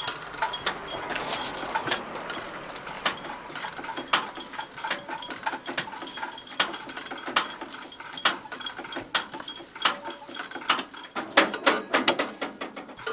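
Old diesel tractor engine being turned over by a hand starting crank at the front: irregular metallic clicks and clanks from the crank and engine, which does not fire.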